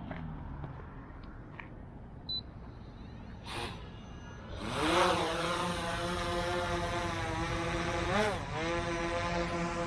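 Autel EVO II drone on its original, non-low-noise propellers: the motors spin up with a rising whine about halfway through, and it lifts off into a steady hover buzz with a brief wobble in pitch near the end. A short beep comes about two seconds in.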